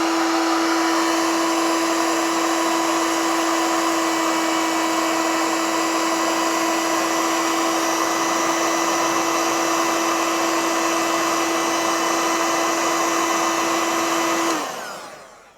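A hot-air heat gun runs steadily with an even blowing rush and a fixed motor whine, heating seized cap-head bolts to free them. It is switched off near the end and winds down over about a second.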